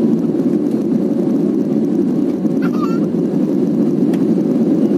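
Steady roar of an Airbus A320-family airliner's cabin during the climb after takeoff: jet engine and airflow noise with a faint steady hum. About two and a half seconds in, a short high sound glides up and down over it, and there is a single click near the end.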